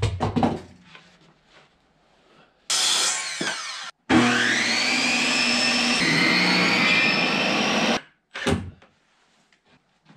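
Circular saw cutting a rough-cut wooden board: a short run of about a second, then a longer run of about four seconds whose whine rises as the motor spins up and then holds steady through the cut. Wooden knocks from handling the board at the start, and a single knock near the end.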